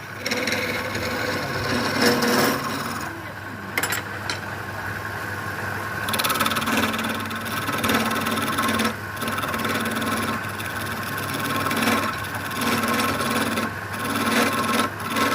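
A tool working wood in repeated rasping, rubbing strokes over a steady hum.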